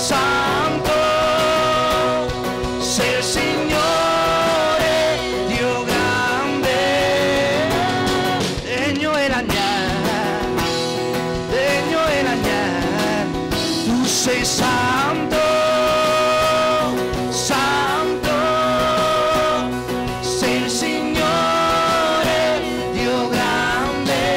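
Live worship song: a man singing a melody with long held notes over acoustic and electric guitar accompaniment.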